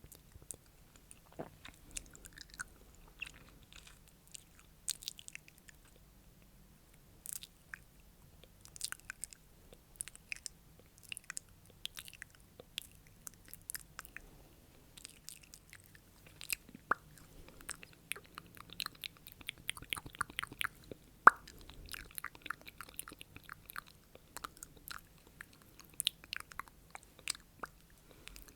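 Close-miked ASMR mouth sounds: irregular wet clicks and smacks of the lips and tongue, several a second.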